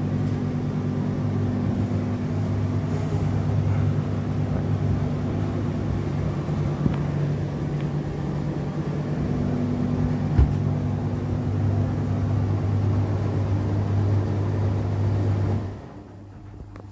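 Indesit IDC8T3 condenser tumble dryer running with a loud, steady hum that the owner links to the drum's reverse action. There is one sharp knock about ten seconds in, and the noise drops away suddenly near the end.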